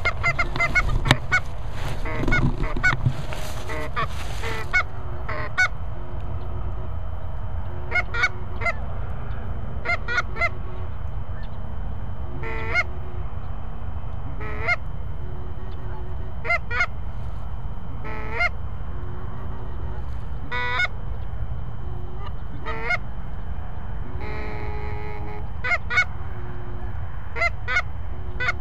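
Canada geese honking: many overlapping honks in the first five seconds, then single honks about every two seconds, over a steady low rumble.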